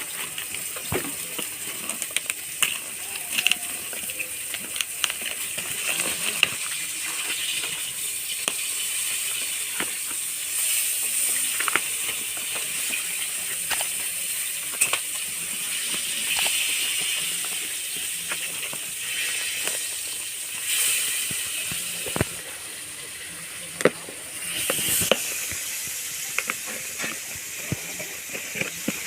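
A parcel being handled and unboxed: rustling with many scattered clicks and knocks over a steady hiss.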